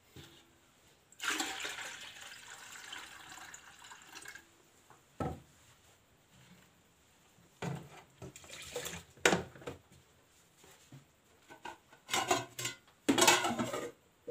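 Rice being washed by hand in a metal bowl: water pouring for about three seconds, then shorter splashes and sloshes with a knock or two as water is poured from a plastic jug and tipped out.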